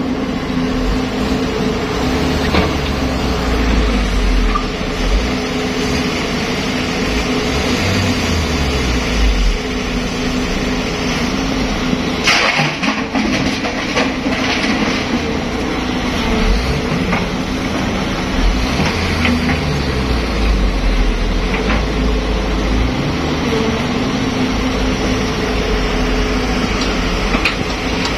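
Caterpillar 320B hydraulic excavator's diesel engine running steadily under the work of digging and swinging, its low rumble swelling and easing several times as the hydraulics take load, with a dump truck's diesel idling. About twelve seconds in, a bucketload of dirt and rock clatters into the truck's steel bed, with smaller clatters near the end.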